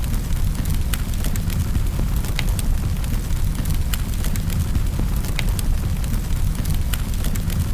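Wood fire crackling in a fireplace: a steady low rumble of flames with frequent sharp pops and snaps, several a second.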